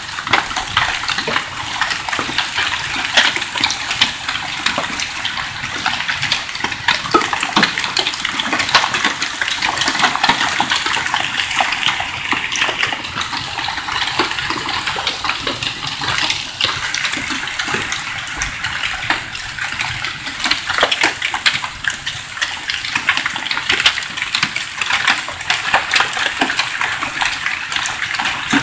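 Heavy hailstorm with rain: hailstones up to about 2 inches across striking tarp-covered vehicles and the ground in a dense, steady clatter of countless small sharp impacts.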